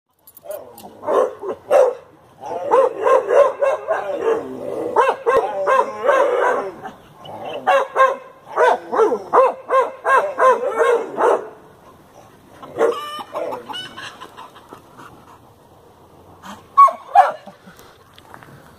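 Chickens squawking in alarm and a young pit bull terrier barking as it chases them. The calls come in long, rapid runs for the first eleven seconds or so, then thin out to scattered calls, with two loud cries near the end.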